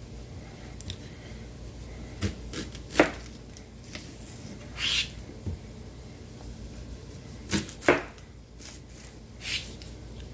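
Kitchen knife chopping sweet potato greens on a cutting board: a few sharp, irregularly spaced knocks with short swishes between them.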